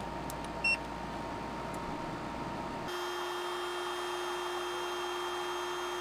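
A single short electronic beep as a power cable is plugged into an EcoFlow power station set up to run an EcoFlow Wave portable air conditioner. About three seconds in, a steady machine hum with a constant tone takes over.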